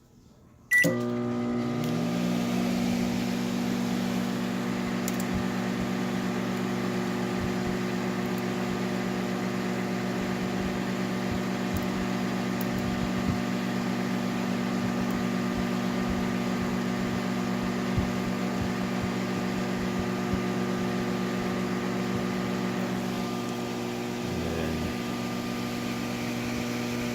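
GE microwave oven switched on with a sudden start about a second in, then running with a steady hum of several even tones.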